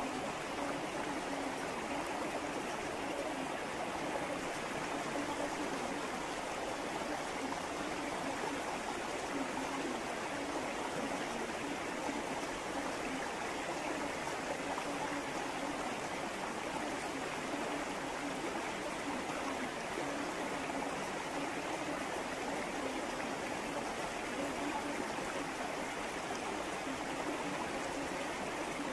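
Recorded river sounds: a steady rush and trickle of flowing river water.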